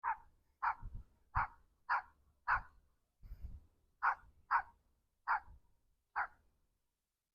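A small Yorkshire terrier barking repeatedly: about nine sharp, high yaps in two quick runs, with a short pause about three seconds in.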